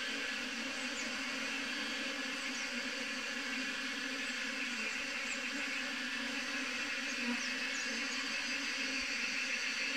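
Swarm of honeybees clustered on a tree branch, many bees giving a steady, dense buzzing hum.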